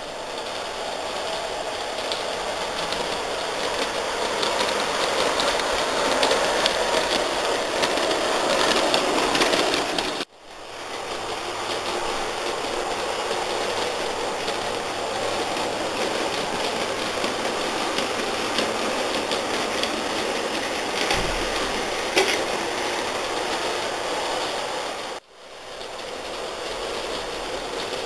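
G scale electric model trains running on their track: a steady whirring run with fast fine clicking from wheels on the rails. The sound breaks off briefly twice.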